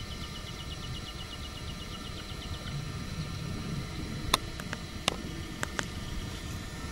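Steady engine and road rumble heard from inside a moving car. A faint rapid ticking runs through the first few seconds. A few sharp clicks come about four to six seconds in.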